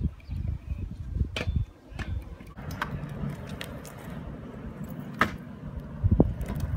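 Stunt scooter wheels rolling over rough concrete with a steady low rumble. A few sharp clacks and knocks come from the scooter's deck and wheels hitting the concrete, the heaviest near the end.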